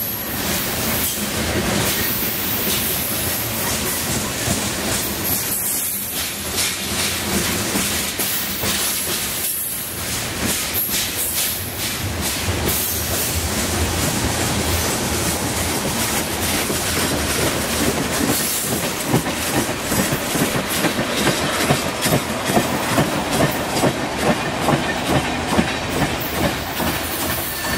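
A freight train of covered hopper cars rolling past at close range, making a steady noise of steel wheels on rail. In the second half, the clickety-clack of wheels over rail joints becomes pronounced, at about two clacks a second.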